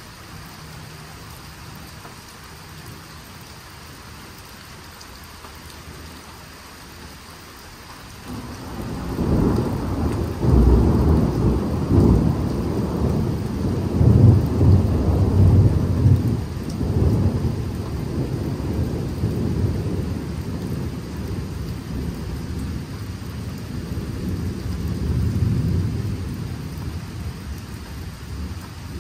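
Rain falling steadily, then about eight seconds in a long, deep roll of thunder begins. It swells several times, slowly fades and swells again near the end.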